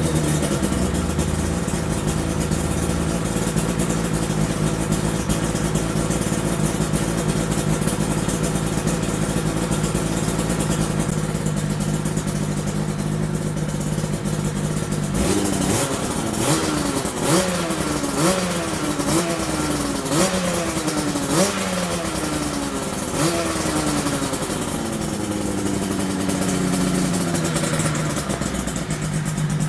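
Yamaha TZR250 3MA two-stroke parallel twin idling through newly fitted JL expansion chambers on its first run after they were fitted. About halfway through it is blipped about seven times in quick succession, roughly once a second, each blip rising and falling in pitch, then it drops back to a steady idle.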